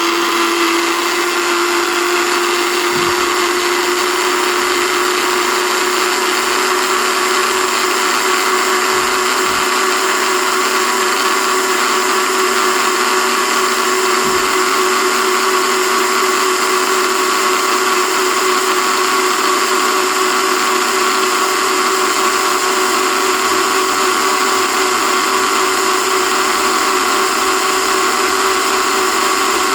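Electric kitchen blender running continuously, blending leaves with a glass of water: a loud, steady motor whine whose pitch creeps up slightly as it runs.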